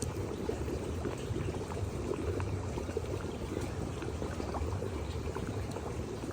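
Hot spring water bubbling and splashing steadily in an outdoor bath, with many small pops.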